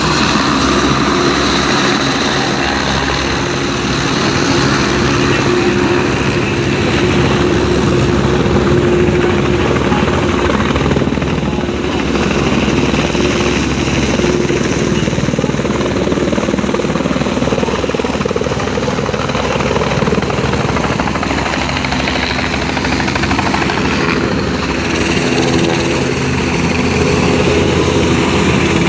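Helicopter running close by: a loud, steady rotor and engine noise with a constant low hum that does not change.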